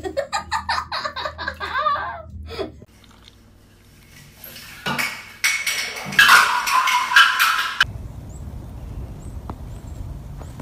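A loud crinkly rustling of light wrapping material being shaken about, lasting a few seconds from about five seconds in. It is preceded by a wavering voice in the first couple of seconds and followed by a low steady hiss.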